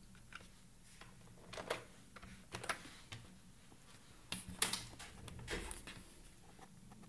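Scattered clicks and taps in small clusters, like keystrokes on a computer keyboard, the loudest cluster about four and a half seconds in.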